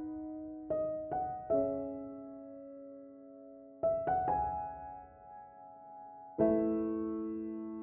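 Slow, gentle piano music: a few soft notes and chords at a time, each left to ring and fade, with the last chord about six seconds in held to the end.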